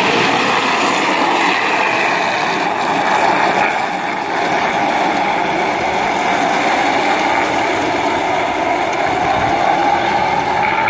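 Steel truck ball-bearing wheels of a large wooden rolimã cart rolling over rough asphalt, a steady grinding rumble much like a train's wheels.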